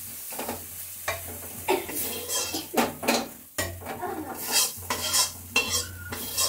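Metal ladle scraping fried masala off the inside of a metal kadhai and tipping it into a pressure cooker: a run of irregular scrapes and clinks.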